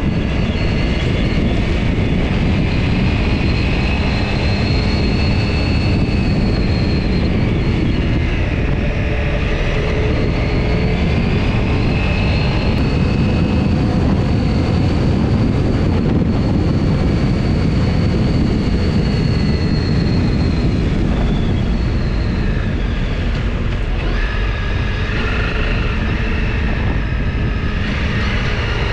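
Honda CRF250 Rally's single-cylinder engine running steadily under way, its pitch drifting gently up and down with the throttle, mixed with wind rush and tyre noise on gravel.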